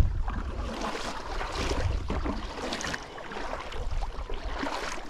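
Wind buffeting the microphone in an uneven low rumble, over a hiss of moving water.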